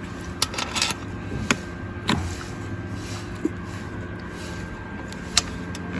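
A handful of short, sharp clicks and knocks, like parts or tools being handled, scattered over a steady mechanical hum.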